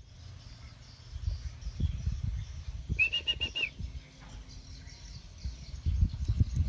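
Young betet parakeet giving a short run of about five quick chirping calls a little over three seconds in, with low rumbling thumps before and after.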